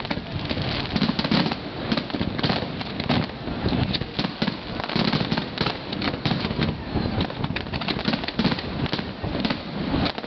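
Fireworks going off, a dense run of sharp bangs and crackles in quick, irregular succession.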